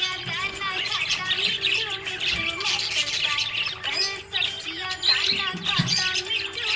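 Budgerigars chirping and warbling in a dense, rapid chatter of short sliding calls, with a steady musical drone underneath.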